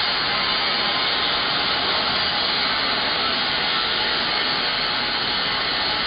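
CNC plasma cutting torch running with a steady, unbroken hiss of the air jet and arc as it cuts.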